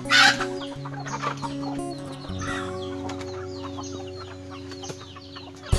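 Chickens clucking over background music with long held notes, with a short loud hissing burst just after the start.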